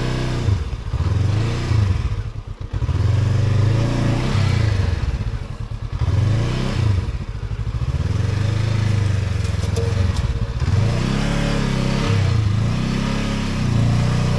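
Honda CB500X's parallel-twin engine revving up and falling back again and again, about every two seconds, as the bike is worked through a muddy stretch of trail, with some clatter and scrape over the engine.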